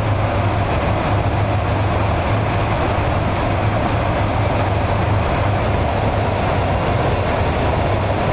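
Steady, loud in-flight cabin noise inside a KC-135 Stratotanker's boom operator station: a constant low hum under an even rushing of engine and airflow noise.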